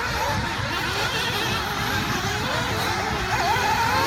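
A pack of nitro RC buggies racing: several small two-stroke glow engines whining at once, their pitches rising and falling as the cars accelerate and brake around the track.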